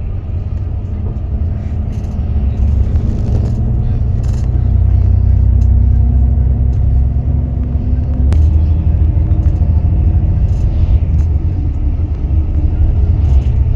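Steady low rumble of a motor vehicle in motion, with a faint engine hum whose pitch holds and then drops after a click about eight seconds in.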